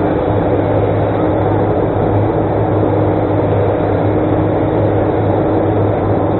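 Excavator's diesel engine running steadily, a constant low hum with a faint steady whine above it.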